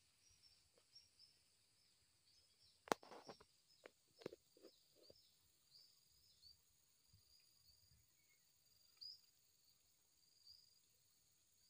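Faint rural ambience of insects chirping, short high-pitched chirps repeating throughout. A quick cluster of sharp knocks and thuds comes about three to four and a half seconds in.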